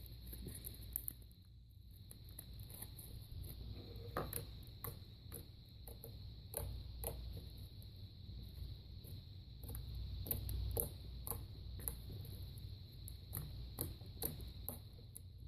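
Floam slime being squished and worked by hand, its foam beads giving off irregular crackles and clicks.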